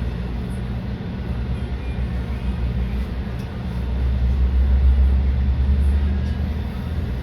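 Low running rumble of a SEPTA Route 34 trolley, a Kawasaki light rail car, heard from on board. It grows louder from about four seconds in and eases off again near the end.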